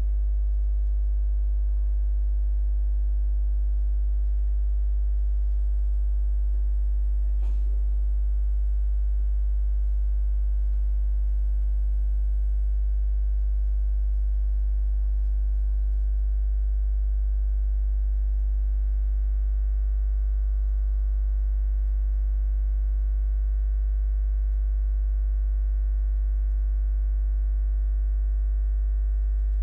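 Steady electrical mains hum with a stack of overtones, unchanging throughout, with one faint click about seven seconds in.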